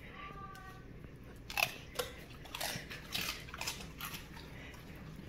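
A dog biting and chewing a stick of raw celery, with sharp, irregular crunches from about a second and a half in.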